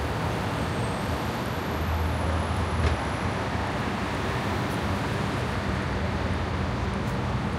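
City street traffic: a steady wash of road noise from passing vehicles, with a low engine hum swelling about two to three seconds in and a short click just after it.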